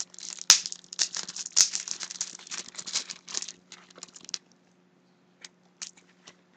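Packaging crinkling and rustling as a small nail polish bottle is unwrapped: a dense run of sharp crackles for about four seconds, then a few separate light clicks near the end.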